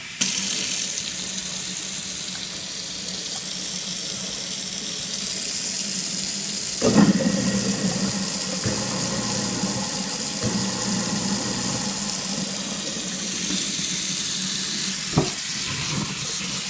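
Water running from a sink tap with a steady hiss and a low hum underneath, a louder surge about seven seconds in and a sharp knock about fifteen seconds in: the awful noises the sink is making.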